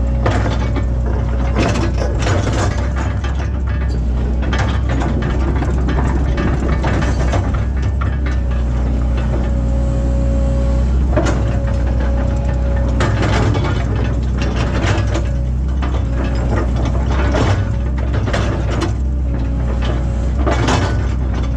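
Link-Belt excavator's diesel engine running steadily with a thin steady whine over it, broken by frequent knocks and clatter from the machine at work.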